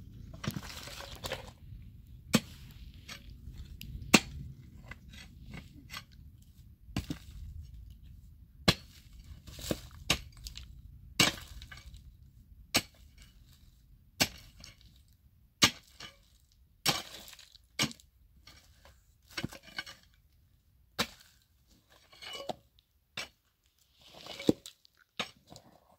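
A pick striking rocky ground and loose stones again and again, with sharp cracking and clinking impacts about once a second at an uneven pace.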